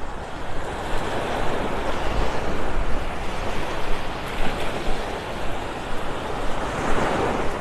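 Small Gulf of Mexico waves washing up onto the sand at the shoreline, in a steady rush of surf that swells about a second in and again near the end.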